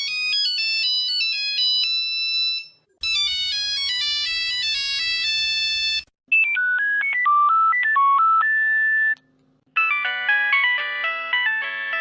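Nokia mobile phone ringtones played back to back: four short melodies, each about three seconds long and cut off abruptly. The new tunes start about three, six and nine and a half seconds in, with brief silences between them.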